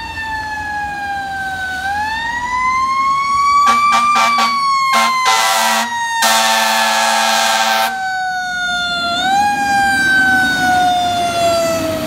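Fire truck responding with its siren wailing, the pitch sliding slowly down and rising again twice, and dropping lower as the truck passes close near the end. About 4 seconds in, the horn sounds in a few quick blasts, then in two long blasts that are the loudest part.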